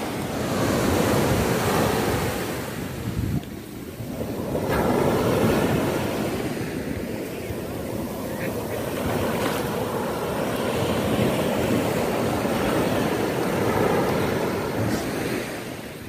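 Sea waves breaking and surf washing up over rocks and sand, swelling and easing as each wave comes in, with wind buffeting the microphone.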